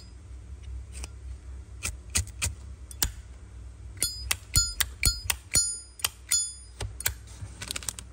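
A Zippo lighter being handled: scattered sharp metal clicks, with a run of louder ringing clinks in the middle.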